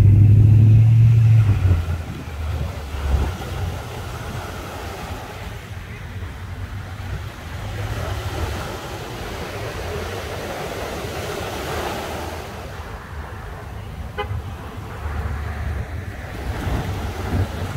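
Beach ambience: small waves washing up on a sandy shore, with road traffic whose low engine rumble is loudest in the first two seconds and again near the end.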